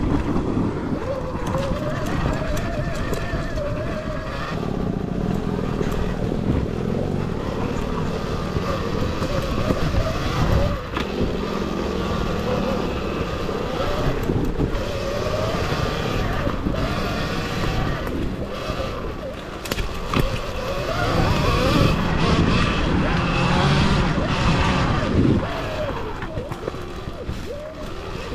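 Off-road bike ride on a rough trail, heard from the rider's camera: a continuous rumble and rattle of riding over the ground, with wind on the microphone and a wavering mid-pitched tone.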